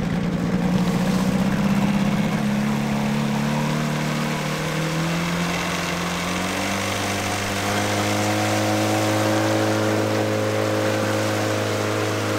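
Boat outboard motor running on the river; its note drops about two seconds in and settles into a steady lower tone from about six seconds on.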